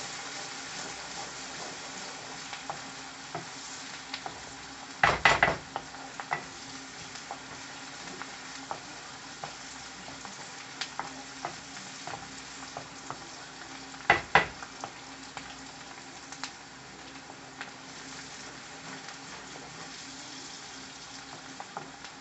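Chopped onions and green chillies sizzling in hot oil in a frying pan, with small pops throughout. A spoon stirs and scrapes the pan in two short spells, about five seconds in and again about fourteen seconds in.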